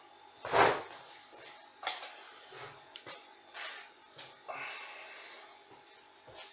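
Irregular handling noises: a series of knocks, clicks and rustles, the loudest a knock about half a second in.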